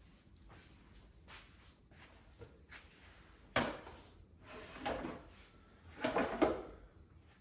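Handling noise: things being moved and set down, a few faint knocks and then three short, louder rustling clatters in the second half.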